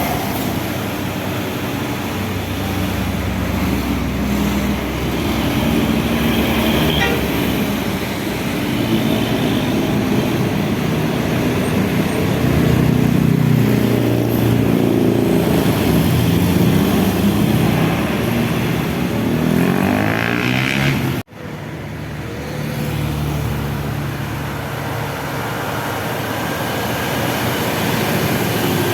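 Heavy road traffic with buses passing, diesel engines running and tyres on the road. The sound breaks off for an instant about three-quarters of the way through.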